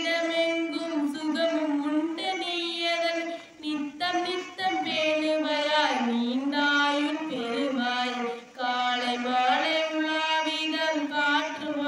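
A girl singing a Tamil song solo into a handheld microphone in a chant-like tune. She holds long, steady notes and pauses briefly for breath between phrases.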